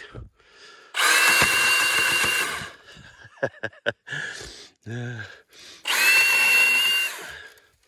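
Milwaukee M18 FUEL Hatchet 8-inch cordless pruning saw run twice in short bursts of about a second and a half each, its chain and brushless motor giving a steady high whine while it cuts thin dead branches.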